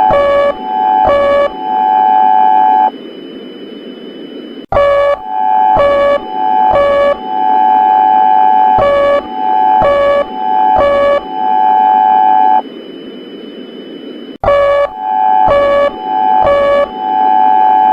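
Emergency alert alarm: a steady electronic tone repeatedly broken by quick drops to a lower pitch, with stretches of static hiss about two seconds long between the cycles, which repeat about every ten seconds.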